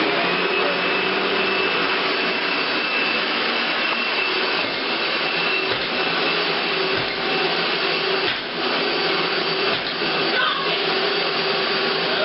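Upright household vacuum cleaner switching on and running steadily with a high whine, with a few faint knocks partway through.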